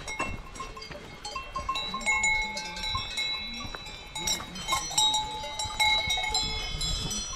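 Many small livestock bells ringing and clinking at several different pitches, in an irregular, overlapping jangle.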